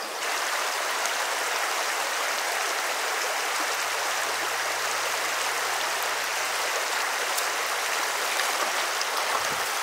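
Small creek running over a gravel and cobble bed: a steady rush of flowing water.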